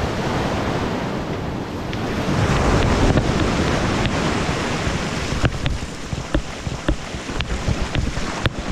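Breaking surf foaming up the shore and washing around the wader, swelling to its loudest about three seconds in, with wind buffeting the microphone. In the second half, a scatter of short sharp clicks.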